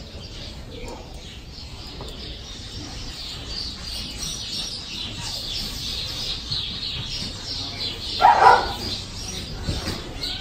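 Rubber curry comb scrubbing a shedding horse's coat in quick, scratchy strokes, with a louder short sound about eight seconds in.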